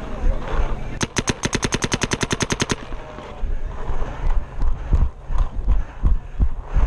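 A paintball marker fires a fast string of about twenty shots, roughly a dozen a second, lasting under two seconds. Irregular low thumps follow.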